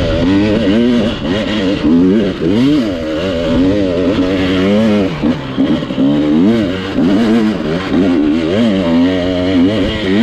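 Dirt bike engine being ridden, its pitch rising and falling over and over as the throttle opens and closes.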